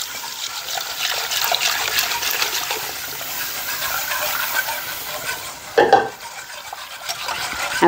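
Milk pouring into a pot of hot butter-and-flour roux while a whisk stirs it steadily, a running liquid swish. One brief knock about six seconds in.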